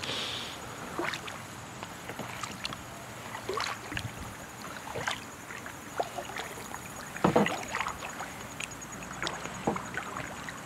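Kayak paddle strokes in calm creek water: the blades dip and drip with small splashes every second or two, the loudest about seven seconds in.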